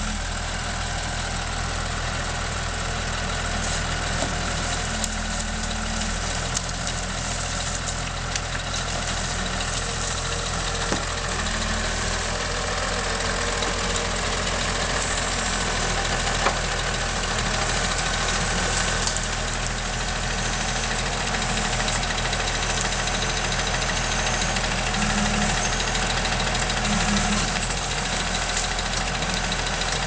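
John Deere 3650 tractor's diesel engine running steadily while it powers a forestry crane handling logs. A single sharp knock comes about halfway through.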